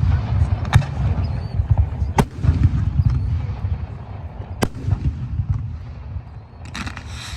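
Daytime fireworks display firing: sharp bangs about three times over a steady low rumble, with a brief hissing burst near the end.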